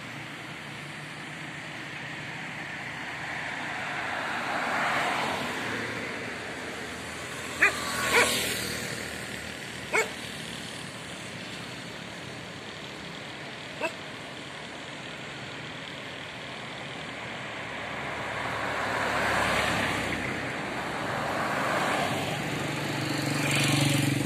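Road traffic going by: vehicles pass one after another, each swelling and fading, about five times. A few short, sharp clicks come in the first half.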